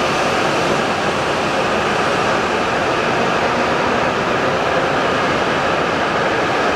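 E7/W7-series Hokuriku Shinkansen train running past the platform: a steady, loud rush of air and wheel-on-rail rolling noise that holds an even level.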